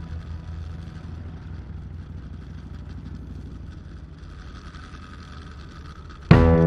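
Kawasaki Vulcan 1600's V-twin engine running steadily while the bike rides along, a low even hum. Loud music with drums and guitar cuts in suddenly just before the end.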